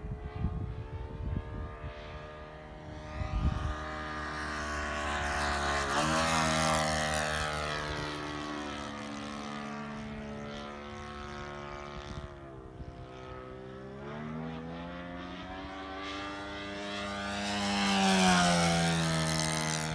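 A model airplane's .90 Magnum four-stroke glow engine running in flight, its pitch rising and falling as the throttle and distance change. It grows loudest near the end as the plane makes a low pass, and the pitch drops as it goes by. There are low thumps on the microphone in the first few seconds.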